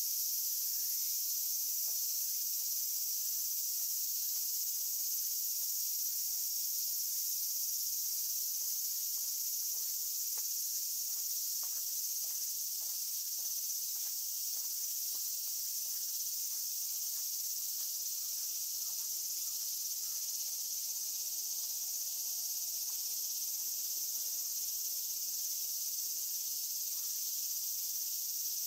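Steady, high-pitched insect chorus. Faint clicks of a cat chewing on a grass blade come through, mostly in the middle.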